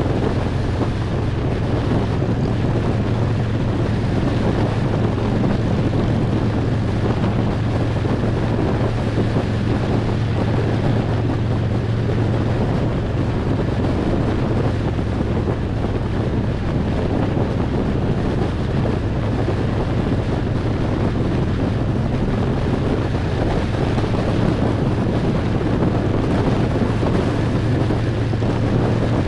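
Harley-Davidson Road Glide's V-twin engine running at a steady cruise, with heavy wind noise on the microphone.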